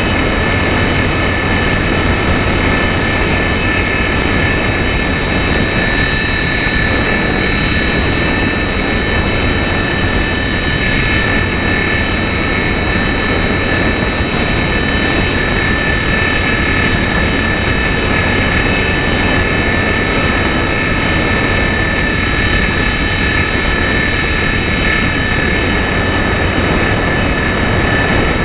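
GWS Slow Stick RC plane's electric motor and propeller running steadily at full throttle in a climb. A high, even whine sits over a heavy rush of wind and prop wash, picked up by the camera on board the plane.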